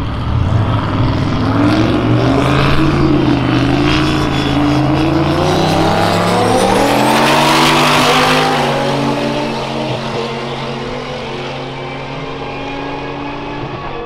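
Two turbocharged drag cars, a twin-turbo Lamborghini Gallardo and Ruby, accelerating flat out side by side in a roll race. Their engine notes climb steadily in pitch under a high whine, are loudest as they pass about eight seconds in, and then fade and drop as they run off down the track.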